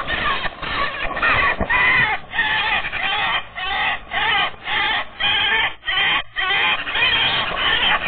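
Eurasian magpies chattering harshly and loudly in a fight on the nest: a rapid series of rasping calls, about two a second, that starts abruptly. This is the aggressive chatter of a resident bird driving off an intruder.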